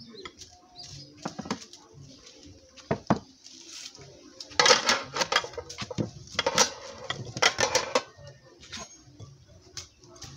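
Bowls, a kitchen knife and a wooden cutting board knocking and clattering on a table. There are a few separate knocks early on and several busier bursts of clatter and scraping in the middle.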